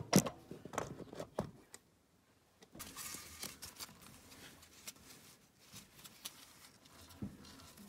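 Handling noises: several sharp knocks and clicks in the first second and a half, then a cloth rag rustling in gloved hands with small scattered clicks.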